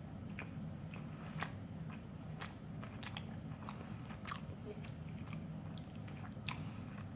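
A man chewing mouthfuls of a McDonald's Big Mac, with soft, irregular mouth clicks and smacks over a faint, steady low hum.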